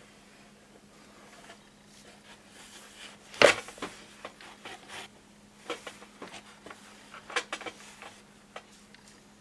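Small metal parts and tools handled on a workbench: scattered clicks and clinks, with one sharp knock about three and a half seconds in and a quick cluster of clicks a couple of seconds later. A faint steady hum underneath.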